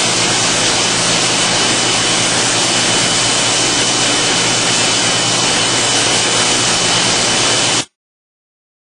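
LS-306 vegetable washing machine running: a steady rushing noise over a low hum, with a thin high whine, cutting off suddenly about eight seconds in.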